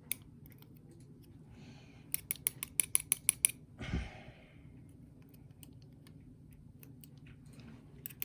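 Small metal parts being handled while a lock is taken apart: a quick run of about ten sharp clicks over a second and a half, as from tweezers working a driver pin and spring out of a lock chamber, followed by a dull knock.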